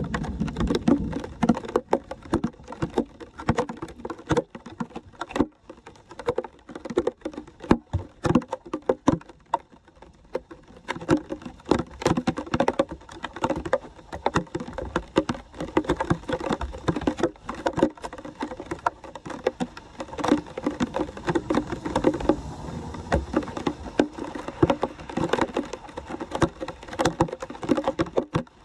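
Hands splashing and scooping wet leaves out of shallow floodwater over a street drain: a dense run of quick, irregular splashes and wet slaps.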